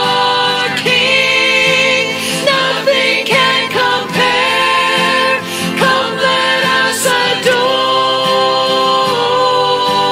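Music: a woman and a man singing a worship song with acoustic guitar.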